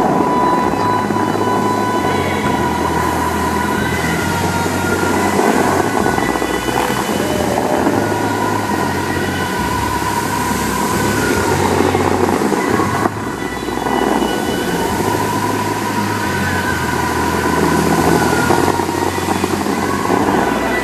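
The Dubai Fountain's tall water jets rushing in a loud, steady spray. Music plays over it in long held notes above a low line that moves in steps.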